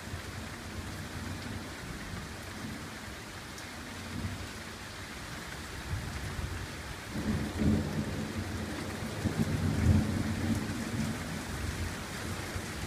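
Steady rain falling, heard as an even hiss, with a long low rumble of thunder that swells about halfway through, peaks a few seconds later and fades before the end.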